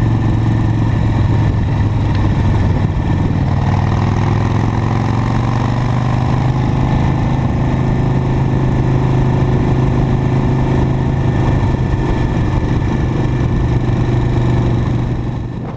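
Harley-Davidson Sportster's air-cooled V-twin engine running steadily while the bike cruises, a steady low drone heard from on the motorcycle. It fades out near the end.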